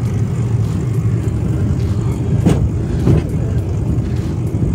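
Rail bike's wheels rolling along the track with a steady low rumble, with two sharp clacks about halfway through, a little over half a second apart.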